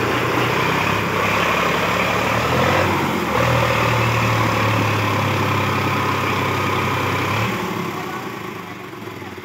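Sonalika tractor's diesel engine running steadily as the tractor creeps forward pulling a loaded trailer. It gets louder a few seconds in and drops away noticeably near the end.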